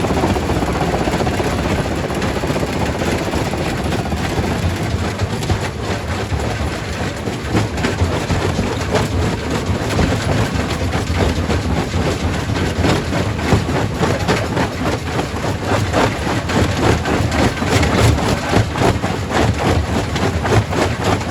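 Quarry primary rock crusher running with a steady heavy rumble, as rocks crack and clatter while they are crushed. The sharp knocks come thick and irregular, getting denser after the first few seconds.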